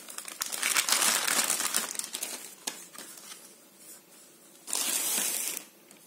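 Clear plastic bag crinkling and rustling as a hard plastic motorcycle handguard is pulled out of it. It is loudest in the first two seconds, then comes a second short burst of crinkling about a second from the end.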